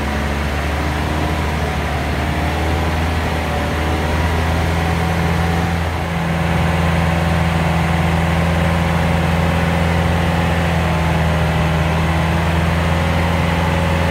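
Long-tail boat's inboard engine running at a steady speed under way, with the hiss of water and rain. It gets a little louder about six seconds in.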